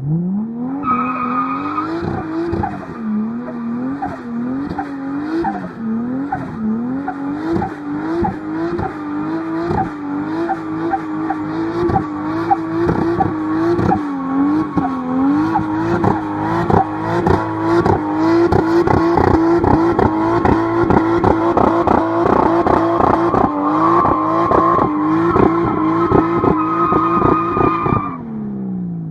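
Tuned performance car engine revving up and down over and over, with sharp pops and crackles and a steady high-pitched whine above it. The revs rise slightly as it goes, then drop away near the end.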